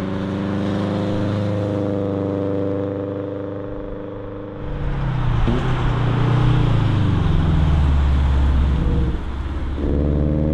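Subaru WRX's turbocharged EJ20 flat-four driving by with its Xforce Varex exhaust valve fully open. The engine note is steady at first, then turns louder and deeper about halfway through as the car comes close. Near the end the note briefly drops away and then returns.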